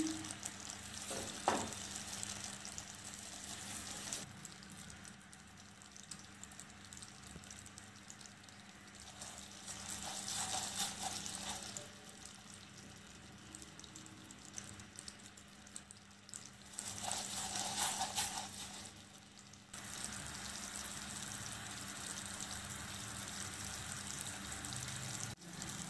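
Sugar syrup bubbling and sizzling faintly in a nonstick pan as it cooks down toward caramel, not yet golden. A silicone spatula scrapes and stirs it, louder for a couple of seconds around ten seconds in and again around eighteen seconds in.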